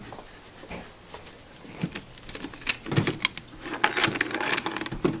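Glass treat jar being opened: its lid clinking and rattling against the rim in a run of small sharp clicks and knocks, thickening from about halfway through, as dog cookies are taken out.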